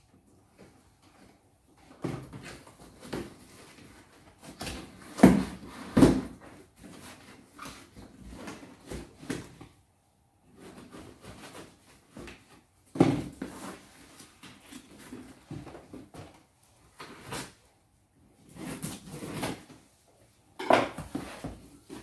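A knife slitting the packing tape on a cardboard box: irregular bursts of scraping, tape tearing and the cardboard knocking and rustling, with two sharp knocks about five and six seconds in. Near the end the box flaps are folded open with another loud cardboard rustle.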